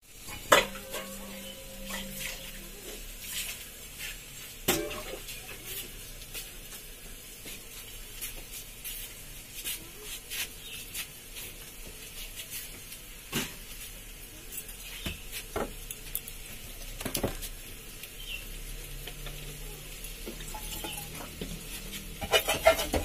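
Grated radish frying in a steel kadai while a metal spatula stirs it, with a faint sizzle. Scattered sharp clinks and scrapes come a few seconds apart, and a quick run of clatter follows near the end.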